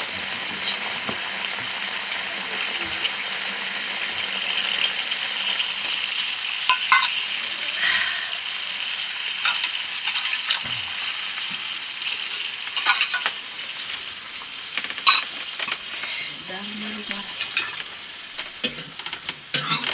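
Food sizzling steadily as it fries in a pan, with a metal spoon stirring it and knocking against the pan every few seconds.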